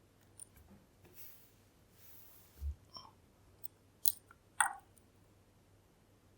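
Scattered small, sharp clicks and light scraping of a lock pick and tension tool working in a Kale Kilit 10-pin dimple lock cylinder, the two loudest clicks about four seconds in. A dull low bump comes about halfway through.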